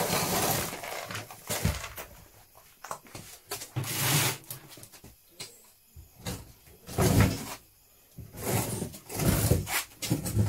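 Irregular bursts of rustling and knocking as plastic bags and plastic crates are shifted about in a cluttered storeroom, with quiet gaps in between.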